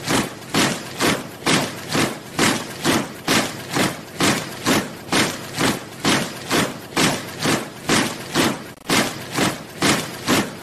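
A squad of soldiers marching in step, boots striking the ground together in an even rhythm of about two steps a second.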